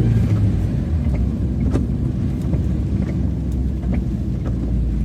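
Car driving on a rain-soaked road: a steady low engine and road hum with the hiss of wet tyres, broken by scattered light taps.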